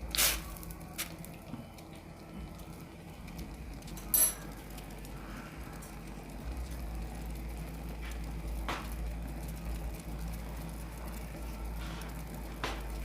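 A pan of homemade herbal tea heating on the stove: a steady low hum with a few sharp clicks of kitchen utensils against the pan. The click about four seconds in rings like metal on metal.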